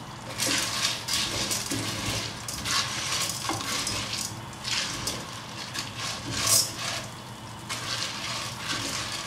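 Wooden spatula stirring popcorn kernels in a nonstick pot of hot butter and oil: irregular scraping strokes over a light sizzle.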